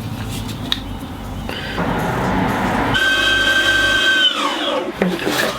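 Boosted electric skateboard sounding a held electronic tone through its drive motors that slides down in pitch, as the board connects to its remote. A hiss builds up before the tone.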